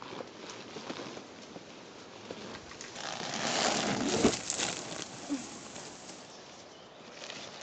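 Leaves and twigs rustling and crackling as someone pushes through dense undergrowth carrying a fabric dry bag, loudest for a moment about three to four and a half seconds in.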